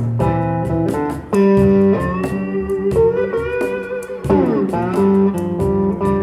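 Electric guitar playing a blues passage, single notes held and bent or slid up and down in pitch.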